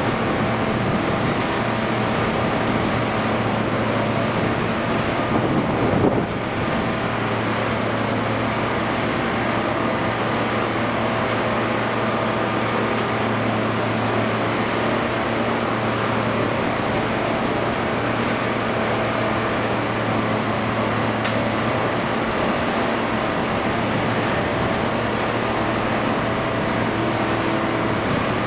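Steady drone of a large engine or heavy machine running, with a constant low hum. A brief louder noise comes about six seconds in.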